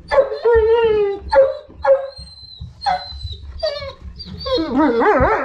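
German Shepherd bitch in labour whining and whimpering: a string of short, high, pitched whines, some falling in pitch, then a longer wavering whine near the end.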